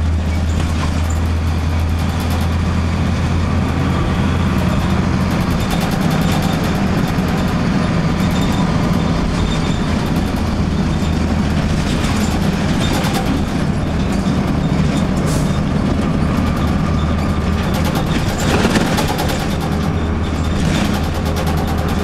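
A 2002 Blue Bird CS transit bus's Cummins ISC straight-six diesel running steadily at road speed, heard inside the passenger cabin as a low drone mixed with tyre and road noise. A few brief interior rattles or clicks come through now and then.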